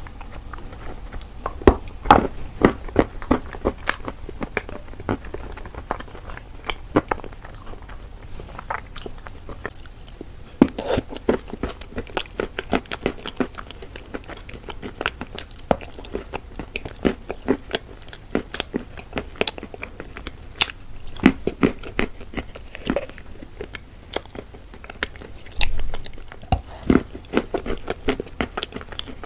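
Close-up chewing and crunching of wet, soaked chalk: crisp crunches and crackles coming irregularly, often several a second, with softer wet mouth sounds between them.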